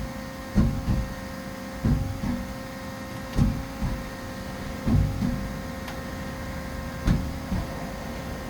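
Haas SL30T CNC lathe powered up, a steady hum with several steady tones, broken by a series of short low mechanical clunks, mostly in pairs about half a second apart, recurring every one to two seconds.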